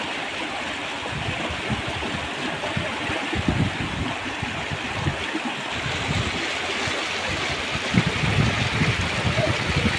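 Water rushing steadily along a concrete irrigation canal, with occasional low rumbles a few seconds in and again near the end.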